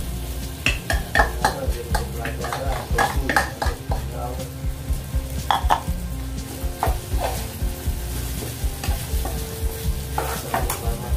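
Rice frying in a small pan with tomato sambal and shrimp, sizzling while a metal ladle stirs and scrapes it, with irregular clinks of the ladle against the pan.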